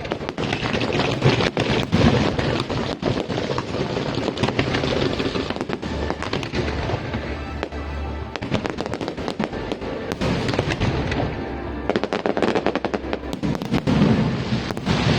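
Aerial fireworks going off in rapid succession, many sharp bangs and crackles close together, with music playing underneath.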